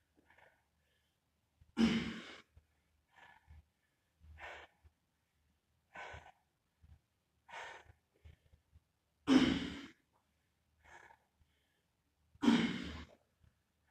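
A man breathing hard from intense exercise: three loud, sighing exhales about 2, 9.5 and 12.5 seconds in, with shorter, quieter breaths between them. The last exhale comes as he drops into a one-legged pistol squat.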